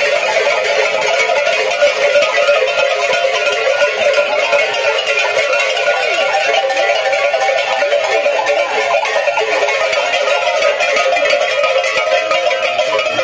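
Many metal cowbells (chocalhos) worn by masked caretas clanking together as they dance, a loud, dense, continuous jangle with a rhythmic swing.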